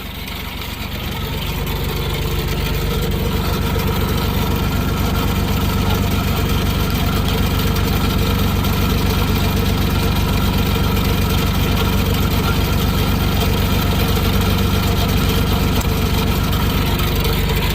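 Rebuilt diesel engine of a Mustang skid steer running, rising in level over the first couple of seconds as it is throttled up and then holding steady. Everything is rattling, which the owner puts down to worn-out motor mounts.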